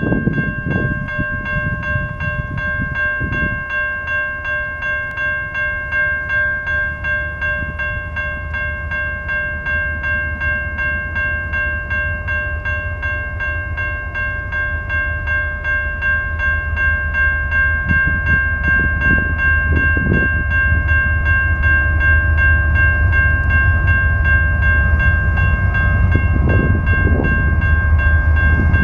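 Railroad crossing bell ringing steadily with a quick, regular beat while the crossing signals are active, warning of an approaching train. Under it a low rumble from the approaching train grows louder in the second half.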